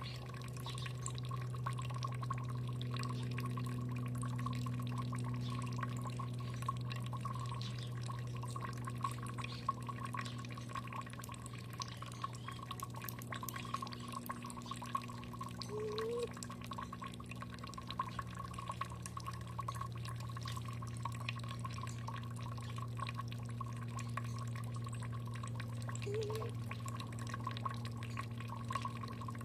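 Water dripping and trickling in many quick small splashes, over a steady low hum.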